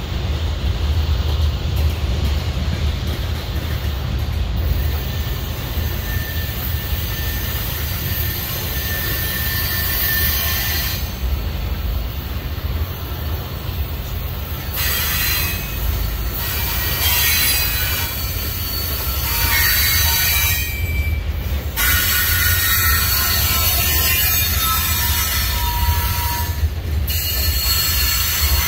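Norfolk Southern freight train's covered hoppers and tank cars rolling past, with a steady low rumble of wheels on rail. High-pitched wheel squeal comes and goes over it from about five seconds in, more often in the second half.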